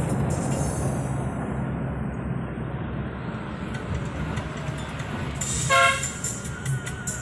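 Road vehicle running with a steady low rumble, and one short horn toot about six seconds in.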